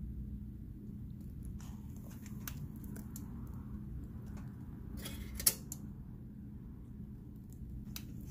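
A ladle scoops thick bean batter and pours it into a banana-leaf wrap, with scattered light clicks and one sharp knock about five and a half seconds in, over a steady low hum.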